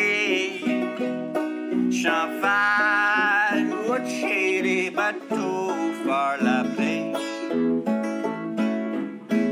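Live band music: a five-string banjo picking quickly over an archtop guitar and a second guitar, with a male voice singing.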